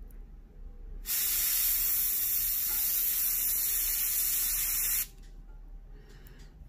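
Gravity-feed airbrush blowing a steady hiss of compressed air for about four seconds. It starts sharply about a second in and cuts off suddenly, with the air pressure turned up a little.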